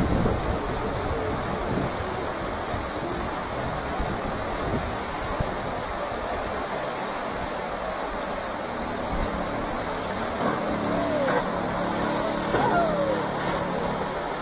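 River rapids rushing steadily, with wind rumbling on the microphone. From about ten seconds in, a few short calls of voices rise over the water.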